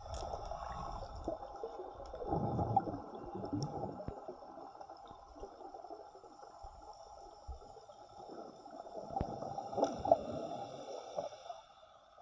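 Water heard underwater through a submerged camera while snorkeling: muffled sloshing and gurgling that swells twice, about two seconds in and again near ten seconds, over a steady faint hum.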